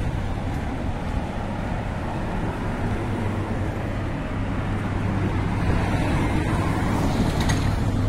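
City street traffic noise from passing cars, with a steady low hum that grows louder about halfway through.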